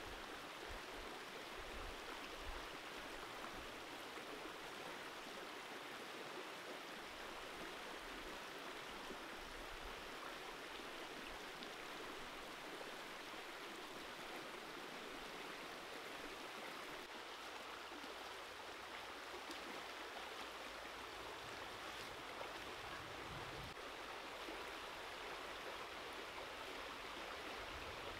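Shallow stream running over rocks: a steady, even rush of water.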